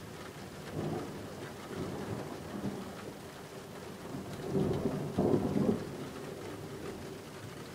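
Thunder rumbling over steady rain. A low rumble swells about a second in, and a louder one builds from about four and a half seconds, fading after about six.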